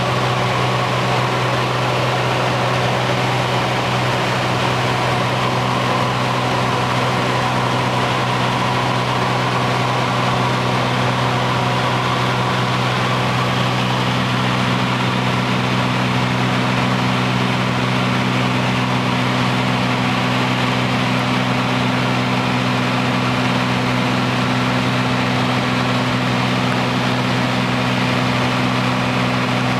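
Cessna U206G's six-cylinder piston engine and propeller running steadily in flight, heard inside the cockpit as a constant low hum over a broad rushing noise.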